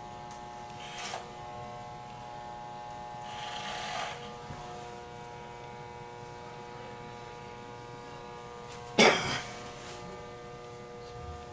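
Corded electric hair clippers running with a steady hum while cutting a thick head of hair short for a flat top. Brief swells of noise come as the blade bites into the hair, about one and four seconds in, and a short, much louder burst comes about nine seconds in.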